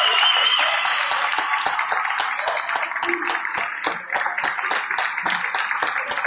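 Spectators clapping, many hands at once, at an ice hockey rink. A shrill, wavering high tone stops within the first second.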